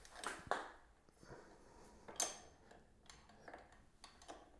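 Faint, irregular metallic clicks and taps of a wrench working on a bicycle pedal as it is tightened into the crank arm, the sharpest click about two seconds in.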